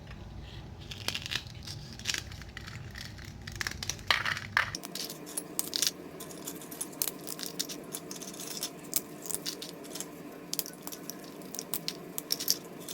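Crisp fried puris being crushed and broken up by hand, a run of irregular crackles and snaps.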